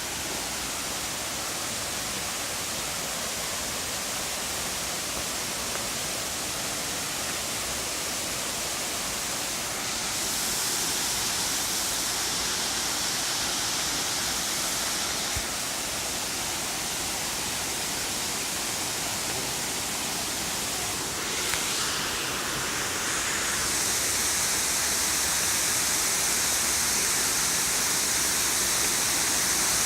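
Benang Kelambu waterfall's water pouring down in a steady rush, its hiss growing louder about ten seconds in and again from about two-thirds of the way through.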